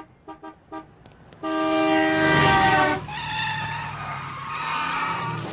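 Three short horn-like honks, then a long loud blast, followed by fainter horn tones over a low steady rumble.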